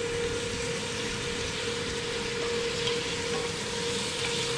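Aromatics and soy and oyster sauce sizzling in hot butter and oil in a stainless steel pot, a steady frying hiss, with a steady hum underneath.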